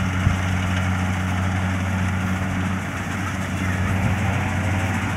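Diesel engine of a Kubota DC-70 combine harvester running steadily while harvesting rice: an even, low drone.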